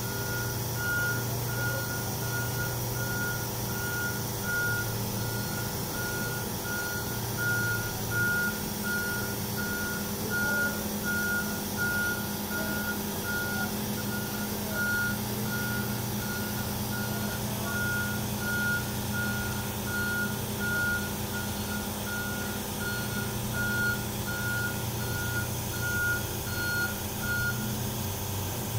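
A vehicle's reversing alarm beeping steadily at one pitch, about one and a half beeps a second, over the low steady running of an engine. The beeping stops shortly before the end.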